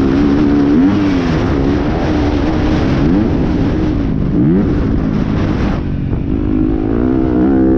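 Yamaha enduro motorcycle engine heard from the rider's helmet, revving hard, its pitch repeatedly climbing and dropping as it accelerates and shifts gears, over rushing wind noise. About six seconds in the engine eases off briefly, then pulls again.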